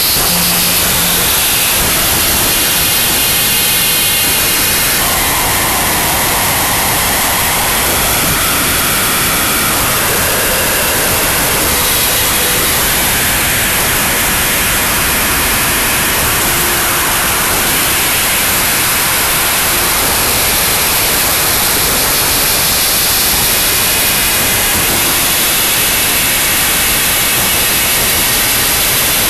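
Harsh noise wall: a loud, dense, unbroken mass of static that holds almost unchanged throughout, with only slight shifts in its grain.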